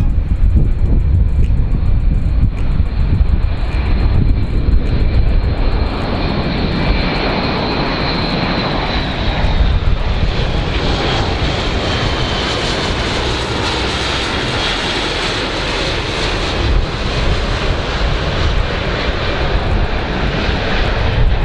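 Airbus A400M's four turboprop engines flying low past, a steady drone over a deep rumble. High whining tones from the propellers drop a little in pitch about halfway through as the aircraft passes.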